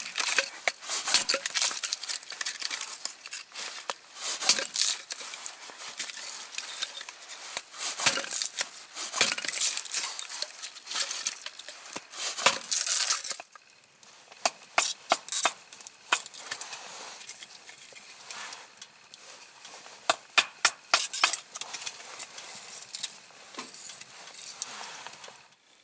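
Hatchet blade shaving and splitting kindling off a wooden board: repeated scraping, tearing and cracking of wood with sharp snaps. Quieter from about halfway through, with scattered snaps.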